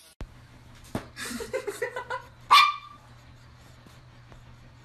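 A small dog barking, with softer vocal sounds first and then one sharp, high-pitched bark about two and a half seconds in.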